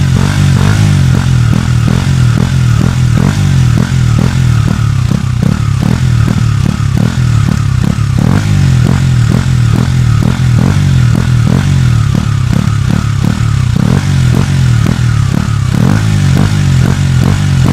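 KTM Duke 125's single-cylinder four-stroke engine running at steady, unchanging revs through its stock exhaust, with a regular pulsing about three times a second.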